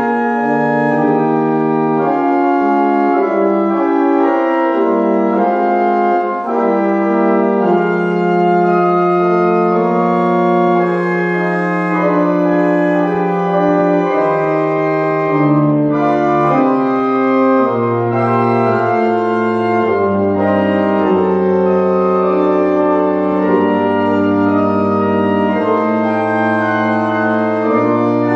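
Church pipe organ playing: several held notes moving in parts over a sustained bass line, which drops lower about two-thirds of the way through.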